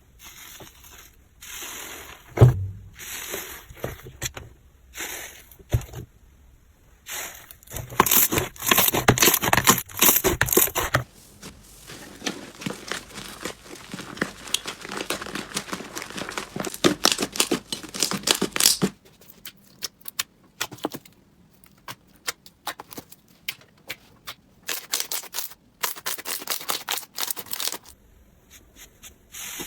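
Slime being squeezed, pressed and stretched by hand, with dense crackling, clicking and popping typical of crunchy slime. The texture changes abruptly several times from one clip to the next.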